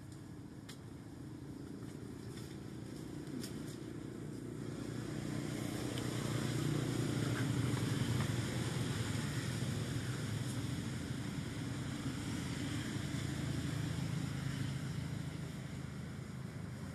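Low, steady engine drone of a passing motor, swelling to its loudest about seven or eight seconds in and easing off toward the end.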